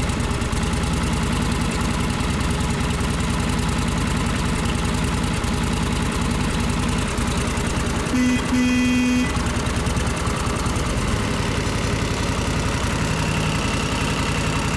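1937 Harley-Davidson Knucklehead's overhead-valve V-twin idling steadily on its first run after a frame-up restoration. About eight seconds in, a short steady tone sounds over it for about a second.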